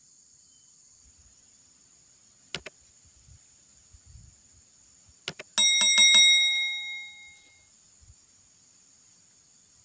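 Subscribe-button animation sound effect: sharp mouse clicks, then a small notification bell struck rapidly about five times and ringing out for over a second. A steady high insect drone runs underneath.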